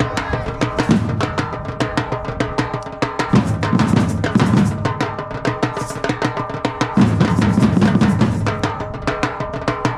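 Batucada percussion ensemble playing Brazilian drums: a fast, dense stream of drum strokes, with the bass drums coming in heavily about three seconds in and again about seven seconds in.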